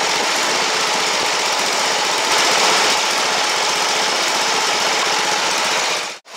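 Small engine of a Simplicity Sunrunner garden tractor running steadily after being brought back to life, swelling slightly a couple of seconds in, then cutting off abruptly near the end.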